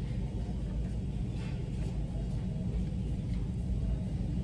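Steady low rumble of the ferry Sunflower Kurenai underway, carried through the hull into the dining room. A few faint clicks of chopsticks and tableware sound about a second and a half in and again near three seconds.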